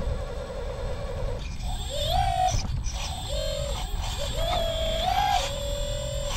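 Electric motor and gear whine of a 1/20 scale radio-controlled construction model at work. The pitch slides up and down, holding briefly between changes, as the machine's load and speed vary, over a low rumble.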